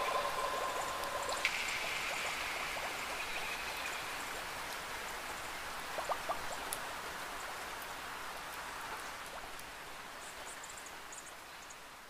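Steady rain falling, an even hiss with a few sharper drop ticks about six seconds in, fading out gradually.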